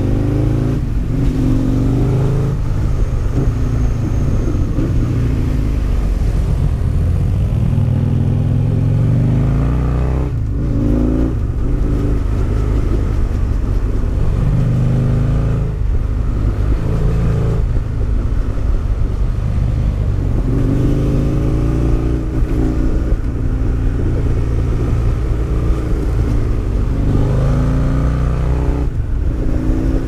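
Husqvarna Nuda 900's parallel-twin engine heard from the rider's seat, its note rising and falling as the bike is accelerated and slowed through a run of bends, with several short breaks in the note.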